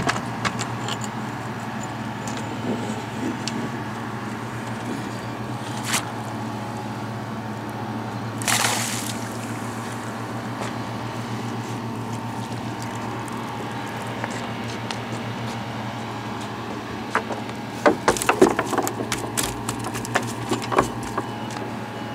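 A fish splashing briefly at the water's surface about eight seconds in while it is netted, over a steady low hum. Near the end comes a run of knocks and clatters on the wooden pier.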